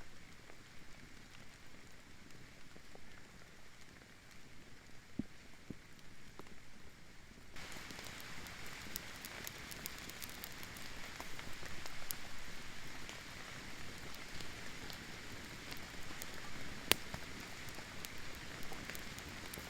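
Rain falling and pattering on surfaces, with scattered sharp drop ticks; it turns abruptly louder about seven seconds in.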